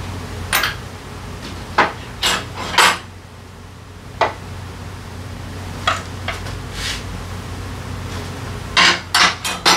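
Metal hand tools (sockets and extension bars) clinking and clanking as they are handled on the steel lift table and put to the scooter's drivetrain cover. The clanks come at irregular intervals, ending in a quick run of four, over a steady low hum.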